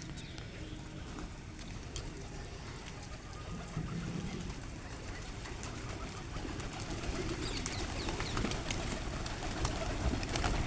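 Pigeons cooing, a low warbling call, with scattered light clicks and taps that grow busier toward the end.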